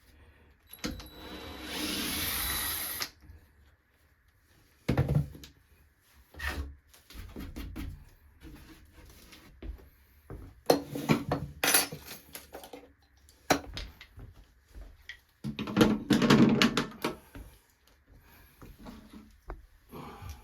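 Power drill driving screws into door hardware: one steady run of about two seconds near the start, then shorter bursts mixed with clicks and knocks of the hardware being handled.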